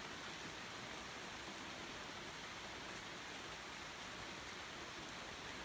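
Steady rainfall, an even hiss that does not change.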